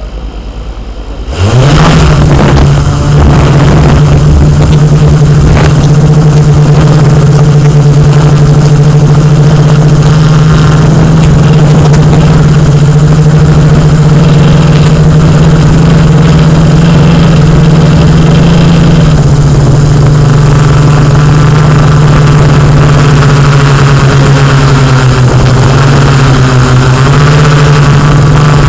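Yuneec Q500 quadcopter's electric motors and propellers spinning up about a second and a half in, then a loud, steady hum as it lifts off and climbs, heard through the drone's own camera microphone. The pitch dips a little about two-thirds of the way through and wavers again near the end as the flight changes.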